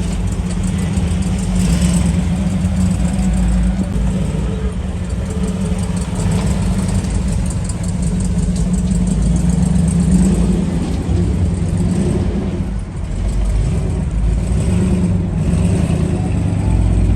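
A car engine running nearby, mostly idling with some revving, a steady loud low rumble that eases briefly about twelve seconds in.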